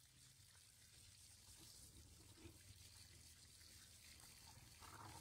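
Faint running water, a soft even hiss, with a steady low hum underneath.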